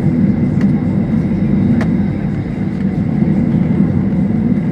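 Steady low rumble of a Boeing 737-800's CFM56 engines and airframe heard inside the cabin, with a faint steady high engine whine over it and a light click about two seconds in.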